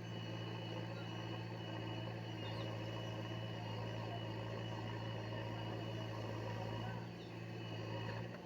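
Heavy diesel engine running steadily, a low even drone with a brief dip in loudness about seven seconds in.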